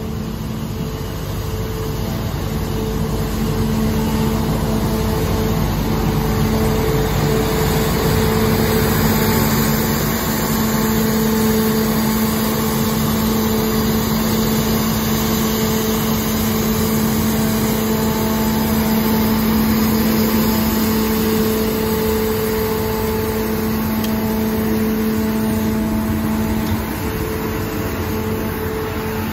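Street sweeper truck running at work along the gutter: a steady engine and blower drone with a constant low hum, over the scrubbing of its rotating gutter broom. It grows louder as it comes close and eases a little as it moves away near the end.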